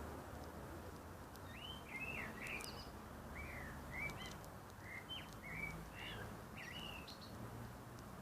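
A bird singing a string of short chirps, from about a second and a half in until near the end, over a steady background hiss of outdoor noise.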